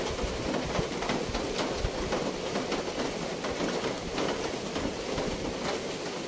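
Steady outdoor nature ambience: an even rushing noise with frequent small ticks and clicks throughout.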